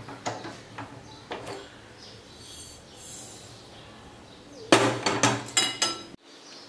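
Metal clatter of an aluminium kadhai handled with pot-holding tongs: a few light clicks in the first second or so, then a quick run of sharp clanks near the end as the empty pan is set back down on the gas stove's steel grate.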